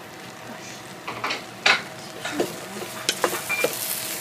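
Raw eggplant chunks being shaken and tossed in a stainless steel pot: a string of knocks and clatters starting about a second in, the loudest near the middle, over a light sizzle.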